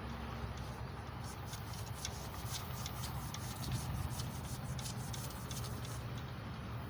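Emery cloth worked back and forth on the steel journals of a small-block Chevy 350 crankshaft to polish them, quick rasping strokes about four or five a second, busiest through the middle.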